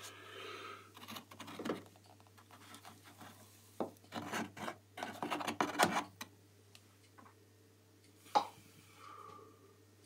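The plastic detergent drawer of a Hotpoint washing machine is handled, pulled and scraped in its housing, giving irregular bursts of plastic rubbing and scraping and a single sharp click about eight seconds in.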